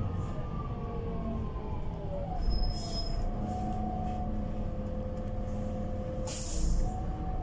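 City bus slowing to a stop in traffic, heard from inside: a drivetrain whine falling in pitch over the first two seconds, then a steady hum while it stands. Two short hisses of compressed air come from the air brakes and pneumatics, about three seconds in and again near the end.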